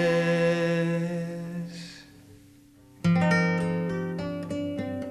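Live acoustic music for guitar and viola da gamba. A held chord with a bowed viola da gamba note dies away over the first two seconds, leaving a moment of near quiet. About three seconds in the guitar strikes a loud strummed chord followed by quick plucked notes, and strikes another chord near the end.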